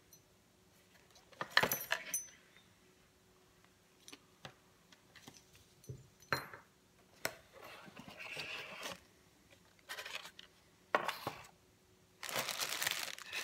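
Hands handling a GPS dog collar and its cardboard box packaging on a table: scattered clicks, taps and scrapes of hard plastic, with a louder clatter about a second and a half in. Near the end comes a burst of rustling as a plastic bag of accessories is lifted from the box.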